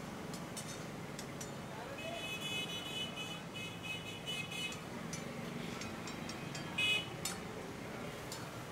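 Background chatter and metal ladle clinks against karahi pans, with a high-pitched horn beeping in rapid short pulses for about two and a half seconds from two seconds in, then a short loud honk about seven seconds in.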